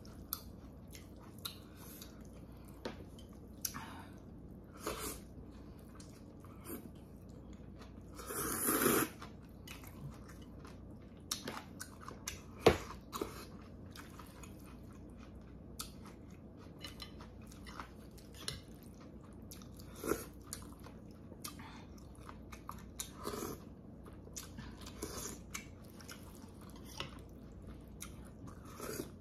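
Close-up eating sounds of a person chewing and slurping thin wheat noodles in broth, with many short wet smacks and light clicks. There is a louder slurp about nine seconds in and a single sharp click a few seconds later.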